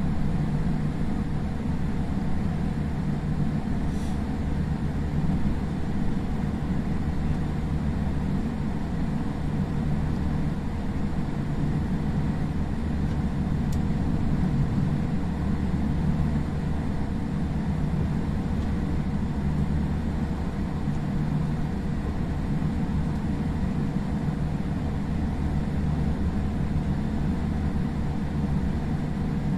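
Steady low rumble of a Boeing 787-8's cabin on the ground after landing, with a faint steady hum and two small ticks, one about four seconds in and one about ten seconds later.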